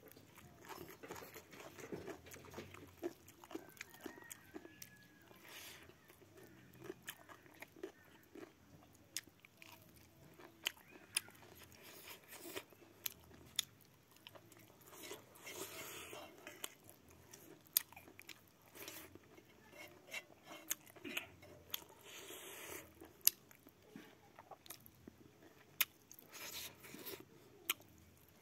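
Close-up chewing and mouth-eating sounds of a person eating pickled salad with his fingers, with frequent sharp lip smacks and clicks and short crunchy bursts.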